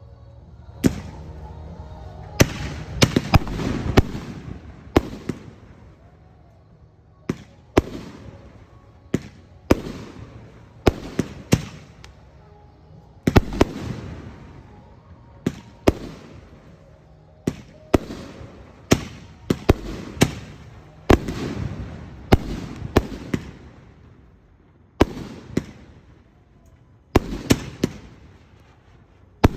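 Aerial fireworks display: sharp bangs of shells going off about every one to two seconds, some in quick pairs, each followed by a rolling rumble and echo.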